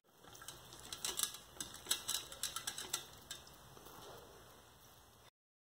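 A quick, irregular run of sharp clicks and taps lasting about two seconds, over a faint steady hiss; the sound cuts off abruptly near the end.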